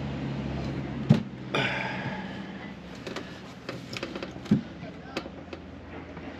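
Wooden knocks and scraping as a teak hatch section with brass hinges is set down into its frame: a solid knock about a second in, a scrape just after, then lighter knocks and clicks near the end. A faint steady low hum runs underneath.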